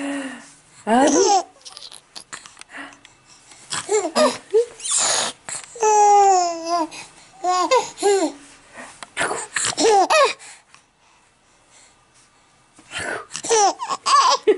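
Baby laughing in repeated bursts and babbling, with one long drawn-out note about six seconds in and a quiet pause of about two seconds near the end.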